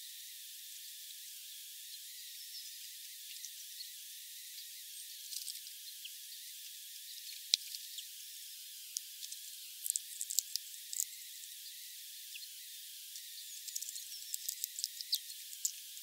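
Hawfinch cracking and husking sunflower seeds: irregular sharp clicks and crackles, bunched in clusters around the middle and near the end, over a steady high hiss.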